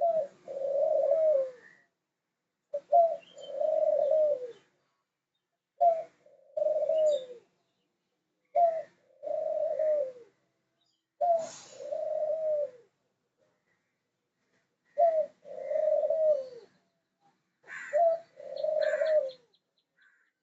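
White dove cooing: seven two-part coos, each a short note followed by a longer falling one, repeated about every three seconds.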